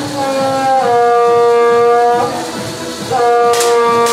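Background music of long held, organ-like chords that shift every second or two. About three and a half seconds in and again at the end come two sharp cracks, air pistol shots.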